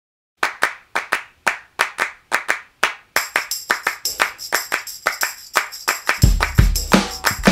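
Background music starting up with a steady handclap beat. A jingling percussion layer joins about three seconds in, and a deep bass drum about six seconds in.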